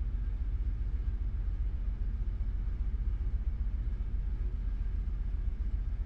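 Ferry engine running as a steady low rumble.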